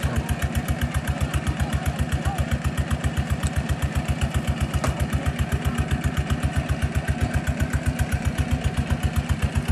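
Engine of a water pump pumping a pond dry, running steadily with an even beat of about seven pulses a second.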